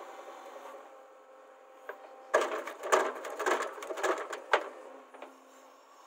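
JCB backhoe loader's rear bucket digging into a bank of soil: a burst of loud cracking and crunching lasting about two seconds, starting a little after two seconds in, over the faint steady hum of the running machine.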